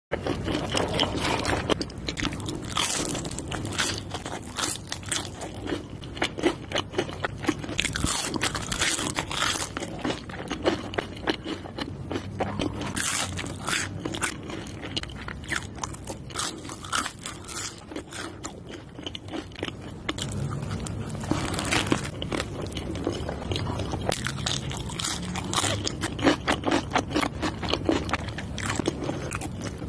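Close-miked eating: bites into a burger and crisp curly fries, with many sharp crunches and chewing.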